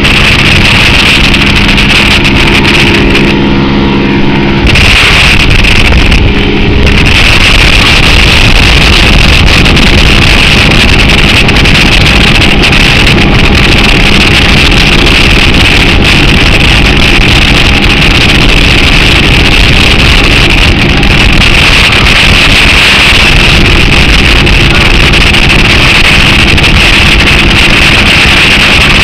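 Outboard-powered motorboat running steadily at speed, loud, with the rush of its churning wake and wind on the microphone.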